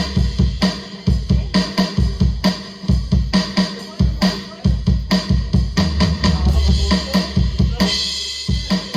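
Alesis Turbo Mesh electronic drum kit being played: a steady beat of kick drum, snare and cymbals, about two hits a second.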